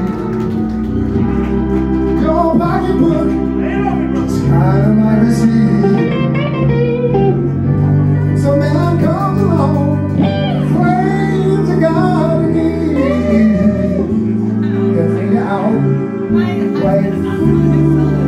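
Live rock band with horns playing: drums, electric bass, saxophones and keyboards, with a lead line that slides and bends in pitch over sustained bass notes.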